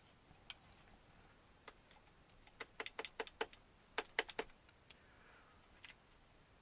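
Light clicks and taps of model-kit chassis plates being handled and lined up: a few single clicks, then two quick clusters of about half a dozen clicks each around the middle.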